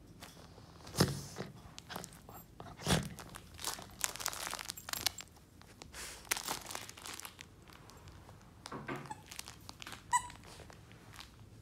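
Dog chewing and biting a plush flamingo squeaky toy: irregular noisy bites and crunches, with one short squeak near the end.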